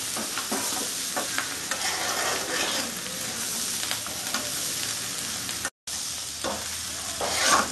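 Steel spatula stirring and scraping fried paneer, onion and capsicum in a black non-stick kadai, over a steady frying sizzle. The sound drops out for a split second about five and a half seconds in.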